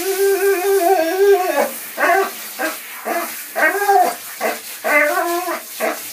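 A dog howling in a wavering, sung-like voice: one long held howl of about a second and a half, then a run of shorter howls that rise and fall in pitch.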